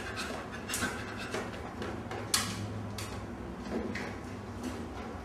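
Small dog panting and scrabbling as it climbs from a chair onto a kitchen counter, with short breathy puffs and one sharp knock a little over two seconds in.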